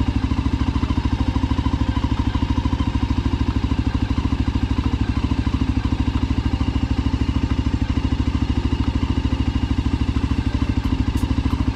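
Voge 300 Rally motorcycle's single-cylinder engine idling steadily, with an even firing pulse.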